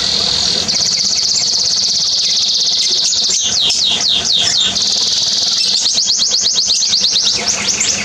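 Northern cardinal singing: a long high trill, a few down-slurred whistles, a second shorter trill, then a fast run of down-slurred notes near the end.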